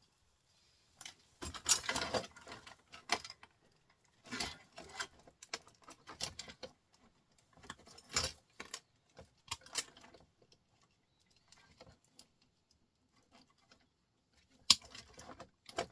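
Small metal and plastic scrap parts being handled and tossed into a bucket while a printer is stripped: irregular light clinks and rattles with quiet gaps between them, and one sharp click near the end.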